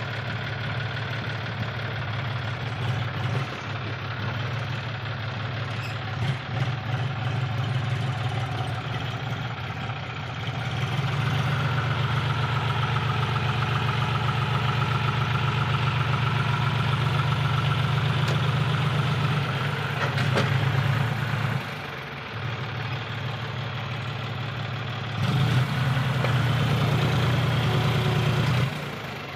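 John Deere tractor's diesel engine working hard to haul a brick-loaded trolley stuck in soft sand, hard enough that the front wheels lift off the ground. It runs steadily, gets louder about ten seconds in, eases off about twenty-one seconds in, and gets louder again a few seconds later until just before the end.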